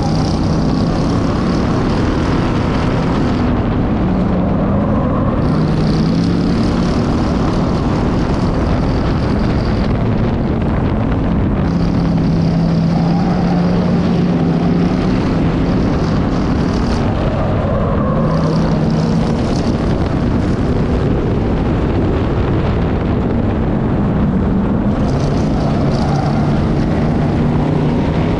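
Factory stock race car's V8 engine heard on board from the hood, running hard with its pitch rising and falling every few seconds as it laps in a pack of cars, over a constant rush of wind and road noise.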